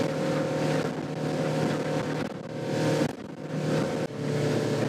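A small boat's engine runs steadily under way, heard from inside the pilothouse cabin, with a rush of water and wind that surges and eases every second or so as the hull runs through the chop.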